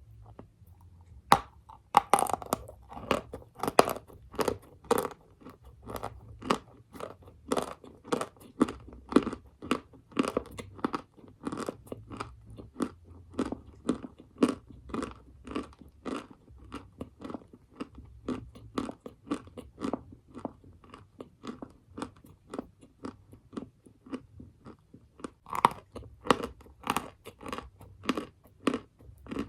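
Crisp bites into a dry lump of edible earth, then steady close-up chewing, about two crunches a second. Loud bites come about a second, two and four seconds in, and another comes near the end.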